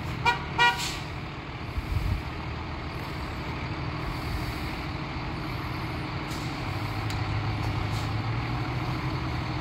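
Fire truck's diesel engine running as the truck pulls out of the station bay, its low note growing steadier and a little louder about seven seconds in. Two brief pitched tones sound near the start.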